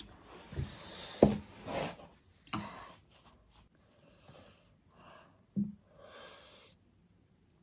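A person sniffing and breathing hard through the nose while eating, in a string of short sniffs and snorts with a few brief mouth noises; the loudest comes about a second in.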